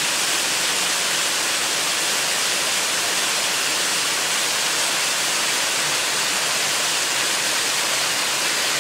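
Steady rush of a tall mountain waterfall, water falling and splashing without a break. It is running at a modest flow after a few dry days, more than a trickle.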